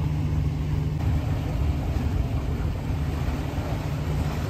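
A 50 m Heesen motor yacht's diesel engines idling with a steady low rumble while she is held stern-to at the quay.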